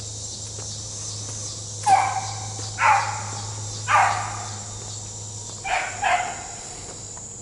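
Beagles baying on a rabbit chase: five drawn-out bays, the first three about a second apart starting about two seconds in, then two close together near the end. A steady high chirring of insects runs underneath.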